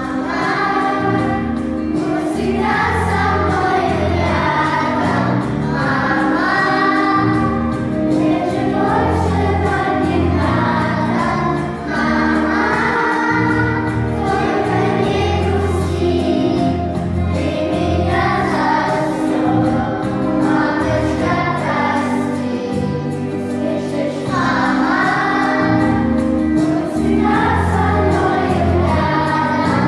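Children's choir, with a few older girls' voices, singing a song together over an instrumental accompaniment of sustained low notes.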